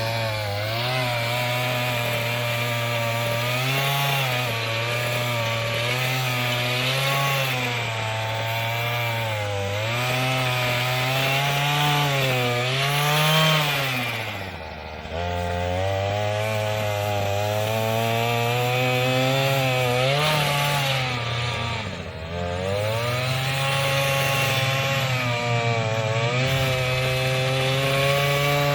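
Earthquake MC33 mini tiller's 33cc two-stroke engine running at high revs while its tines churn through soil and roots. The pitch wavers constantly under the changing load and dips briefly twice, about 14 seconds and 22 seconds in, before picking back up.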